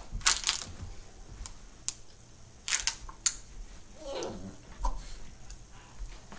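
Scattered sharp clicks and rustles from a Newfoundland mother dog and her puppy playing on the floor. About four seconds in there is one short, falling whine.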